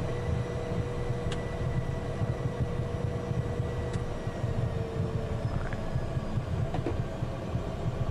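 Inside the cockpit of a Citation business jet taxiing at low power: a steady low rumble from the turbofan engines and the rolling aircraft, with a faint steady whine that fades out about five seconds in.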